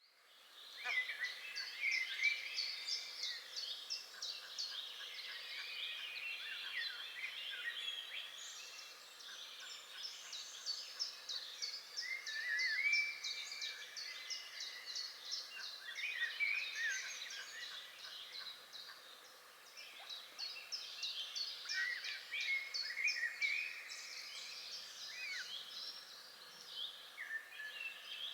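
A chorus of many birds singing and calling at once: dense, overlapping chirps, rapid trills and short sweeping notes that go on without a break.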